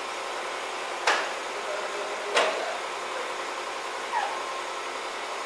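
Steady rushing air noise from the paint booth's ventilation. Three short sharp squeaks, each falling in pitch, come about a second, two and a half seconds and four seconds in.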